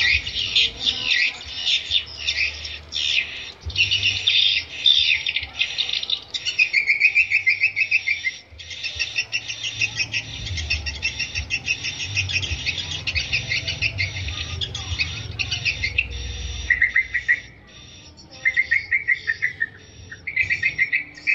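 Swiftlets twittering: a dense stream of fast, high chirps and rattling trills, with lower buzzing trills coming in separate bursts in the second half. It is the call used as a lure sound to draw swiftlets to a nest house.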